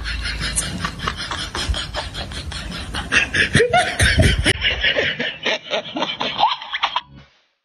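Laughter, a quick run of repeated ha-ha sounds that cuts off sharply about seven seconds in.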